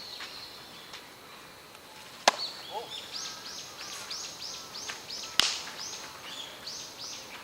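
Two sharp smacks about three seconds apart, over a small bird chirping in a quick, steady run of high repeated notes.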